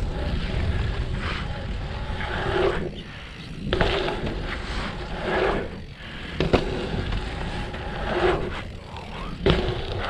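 Mountain bike riding fast over dirt jumps and a pump track: tyres rolling and scraping on dirt under a steady rumble of wind on the helmet microphone, rising and falling with the speed. A sharp knock from the bike comes about six and a half seconds in and another near the end.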